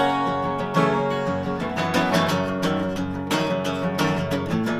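Solo steel-string acoustic guitar strummed in a steady rhythm, playing the instrumental intro of a country song before the singing comes in.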